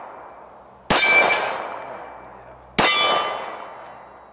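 Two .45 ACP pistol shots from a Colt 1911 Government Model, about two seconds apart. Each is answered by the ring of a struck steel target that fades over a second or more.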